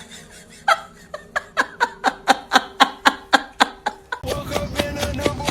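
A person laughing in a quick, even run of about four bursts a second for roughly three seconds, stopping about four seconds in.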